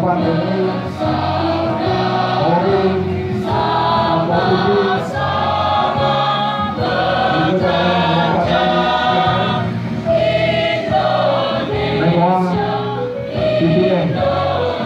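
Mixed-voice school choir of boys and girls singing together, holding long notes that change every second or so.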